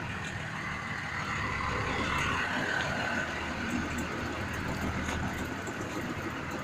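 Engine of a steel-drum road roller running steadily while compacting fresh asphalt.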